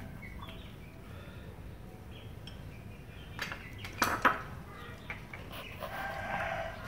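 A few sharp clinks and knocks of tableware about four seconds in, over a low background, with a short vocal sound from the man near the end.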